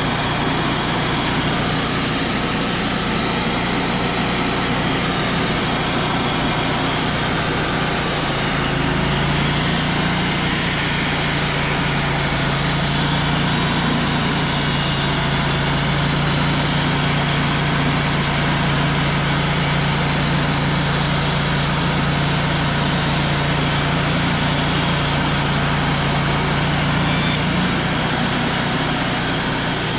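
Wood-Mizer LT35 portable band sawmill running steadily, its engine note growing stronger from about eight seconds in until near the end.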